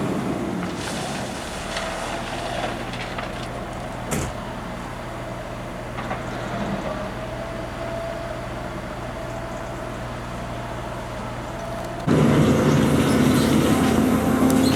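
Heavy diesel engines of an excavator and truck running steadily at a worksite, with one short knock about four seconds in. About twelve seconds in the engine sound steps up suddenly and runs louder.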